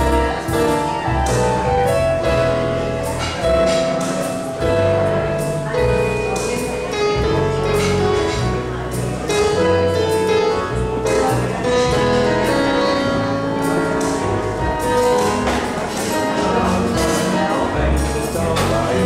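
Yamaha portable electronic keyboard played live: a melody of held notes over a steady beat.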